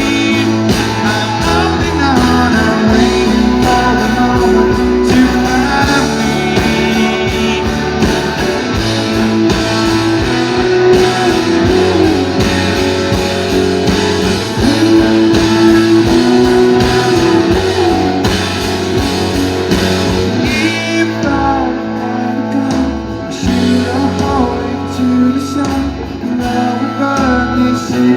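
Live rock band playing, with guitars and a regular drum beat behind a singing voice.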